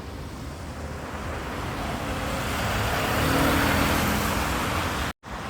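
A car passing on a wet street, its tyre hiss and engine swelling to a peak and easing off again. The sound cuts out completely for a moment near the end.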